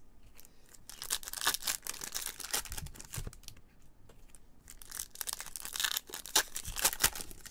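Foil wrapper of a Topps Chrome trading-card pack crinkling and tearing as it is opened by gloved hands, with the cards inside being handled. The crackling comes in irregular spurts, busiest about a second in and again between five and seven seconds in.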